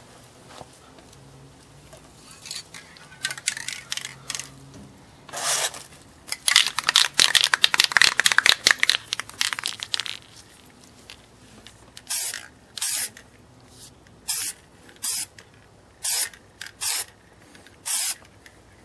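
Aerosol spray-paint can spraying in bursts. There is a longer, broken stretch of hissing in the middle, then about seven short sprays of under half a second each near the end.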